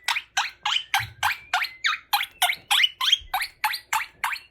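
Quaker parrot giving a rapid, evenly paced run of short chirps, about three to four a second, each sliding sharply down in pitch.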